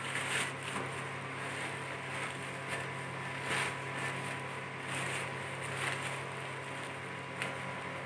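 Chilli grinding machine running steadily with a constant low hum, overlaid by a hiss that swells and fades every second or so.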